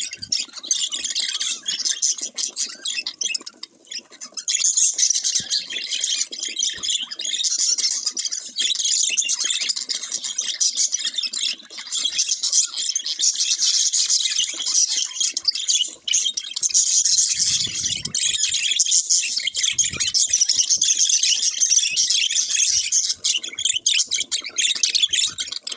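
Budgerigars chattering: a dense, almost unbroken stream of quick high chirps and warbles, with brief lulls about 4 and 16 seconds in.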